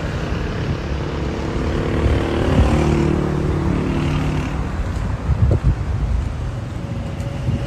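A car engine running, swelling to its loudest about three seconds in and then easing off, with a few low thumps about five and a half seconds in.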